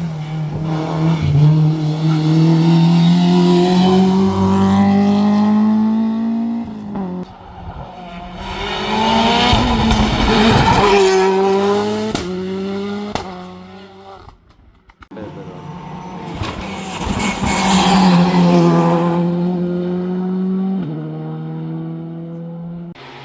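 Competition car engine at full throttle on a hillclimb, its note rising as it accelerates and dropping abruptly at gear changes, with tyre squeal. It comes through in two loud passes, fading briefly to quiet about halfway through.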